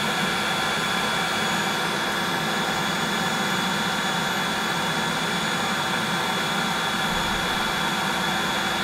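Battery-powered Looftlighter X fire lighter blowing hot air into charcoal at full power: a steady rushing blow with a constant motor whine.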